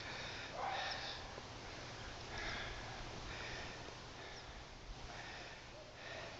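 Faint dog sniffing: a few short, hissy sniffs about two seconds apart.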